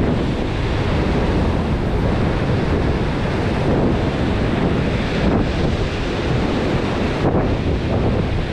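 Heavy surf breaking and churning against a rocky shore, with strong wind buffeting the microphone: a loud, steady rushing roar.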